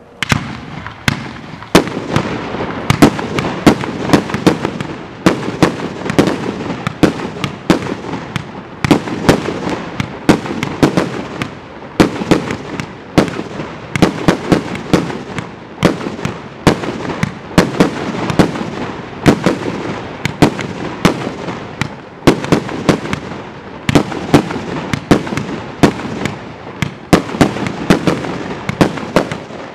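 A 200-shot compound firework cake firing a steady barrage: shells launching from its tubes and report shells bursting with sharp bangs, two or three a second, without letup.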